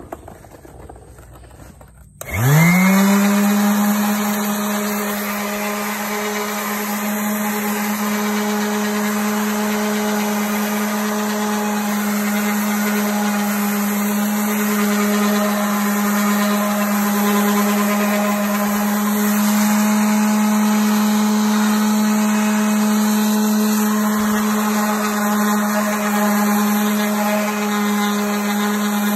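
Electric sander with 220-grit paper switched on about two seconds in, spinning up with a quick rising whine, then running at a steady hum as it sands the keel area of a fibreglass boat hull.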